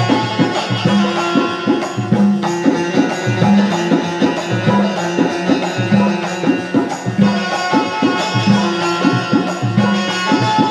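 Bundeli Rai folk dance music: a hand drum keeps up a fast, steady rhythm of deep strokes that bend in pitch, with held melody lines over it.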